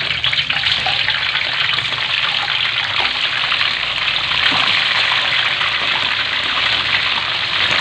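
Raw chicken pieces sizzling and crackling steadily in hot cooking oil in a wok as more pieces are dropped in, being half-fried.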